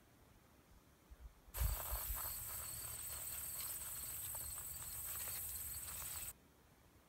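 Soil being shaken through a wire-mesh trap-bedding sifter, a scratchy rustle with small ticks of falling grit, over a steady high trill of field insects. The sound cuts in with a low thump about a second and a half in and cuts off abruptly near the end.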